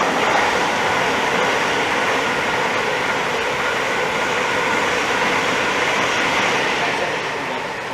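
Electric passenger train passing through the station at speed: a steady rush of wheel and motor noise with a faint whine, building at the start and dying away near the end.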